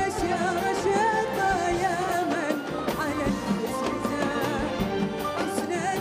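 A woman singing an Arabic song live on stage, her ornamented vocal line carried over an orchestral accompaniment.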